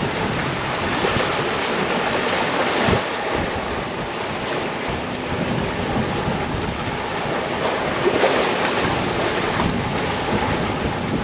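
Sea rushing along the hull of a sailing yacht moving fast under sail in about 20 knots of wind, with wind buffeting the microphone. The rush swells briefly about three seconds in and again about eight seconds in.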